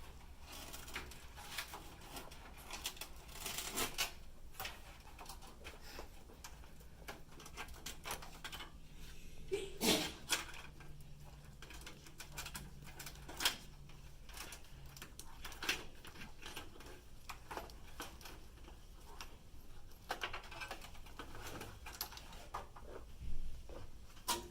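Power-supply cables being routed through the back of a PC case: scattered clicks, taps and rustles of cables and plastic connectors against the metal case, with a louder knock about ten seconds in.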